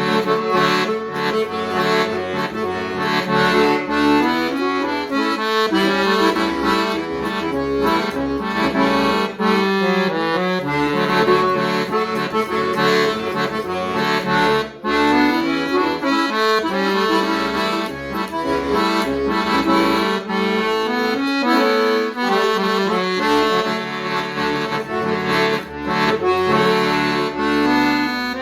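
Instrumental music on a single instrument: sustained chords and a moving melody over a low, pulsing bass line.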